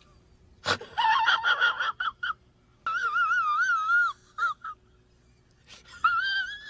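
A high-pitched, wavering whimpering whine from a man's voice, in three drawn-out bursts with a wobbling pitch.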